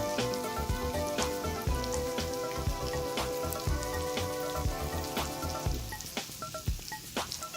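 Breaded mozzarella sticks frying in hot grapeseed oil in a pan, the oil sizzling with steady crackles and pops. Background music plays under it and fades out about six seconds in.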